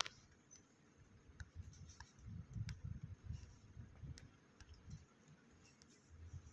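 Faint rubbing and a few soft, sharp clicks, as of a finger swiping and tapping a phone's touchscreen, over an uneven low rumble.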